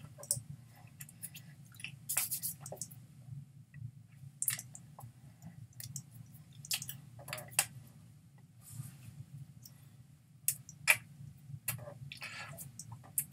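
Irregular small clicks, taps and lip smacks from a person signing, hands meeting and mouth moving, over a steady low hum. One sharper click stands out near the end.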